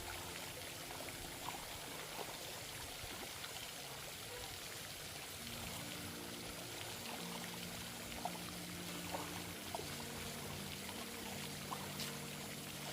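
Steady rush of running or pouring water, with a few small splashes or clicks. Faint held tones come in about halfway through.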